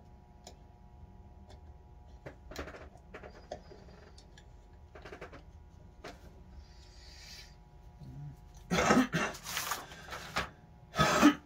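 Light clicks and scrapes of carburetor parts being handled on a workbench, followed near the end by several loud, short, noisy bursts of unclear source.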